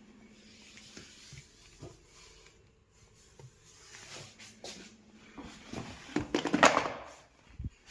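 Scattered clicks and knocks of parts and tools being handled, over a faint steady hum, with a louder clatter about six and a half seconds in and a single low thump near the end.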